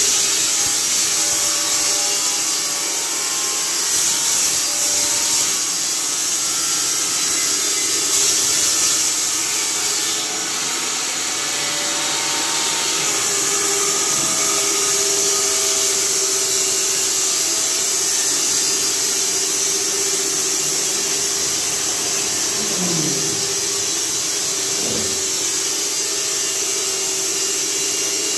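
Horizontal band sawmill with an 18 kW main motor running and sawing a log: a steady high hiss over a steady hum. A couple of short sliding tones come through a little before the end.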